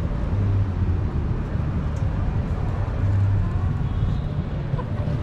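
City street ambience: a steady low rumble of traffic with faint voices of passers-by.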